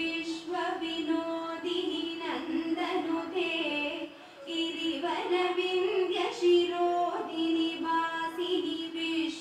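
Background music: a song sung by a high voice over a steady low drone.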